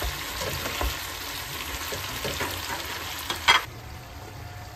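Chicken, carrots and potatoes sizzling in a non-stick wok while a ladle stirs them, with small scrapes and taps. About three and a half seconds in, a glass lid clanks down onto the pan and the sizzling drops to a quieter, muffled hiss under the lid.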